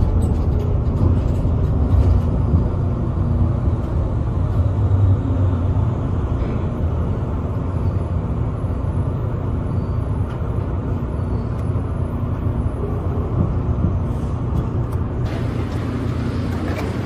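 Automated airport shuttle train running, heard from inside the car as a steady low rumble. About fifteen seconds in, a brighter hiss joins it.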